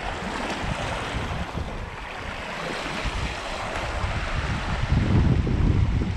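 Small sea waves washing and splashing against a rocky, barnacle-covered shoreline, with wind buffeting the microphone, heavier in the last second or so.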